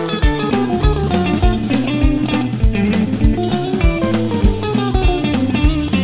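Instrumental music: a guitar-led band track with a steady drum beat, the instrumental part of a children's song with no singing.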